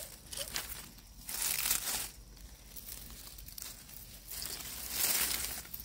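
Dry fallen leaves rustling and crackling as a hand rummages through the leaf litter picking up fallen chestnuts. It comes in several short bursts, loudest near the end.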